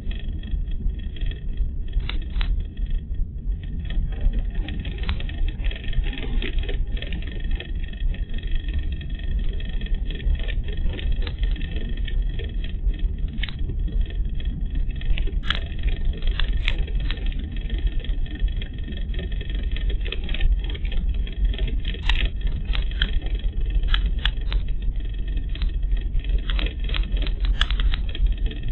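A car driving, heard from inside the cabin through a dashcam's microphone: a steady low rumble of road and engine noise, with scattered short clicks and rattles, more of them in the second half.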